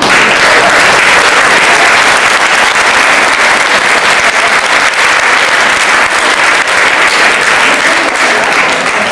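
A large audience applauding loudly and steadily, a dense wash of clapping that eases off near the end.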